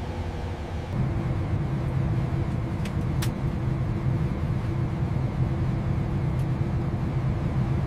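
Steady low rumble and hum of a jet airliner climbing out just after takeoff, with its landing gear retracting. Two short clicks come about three seconds in.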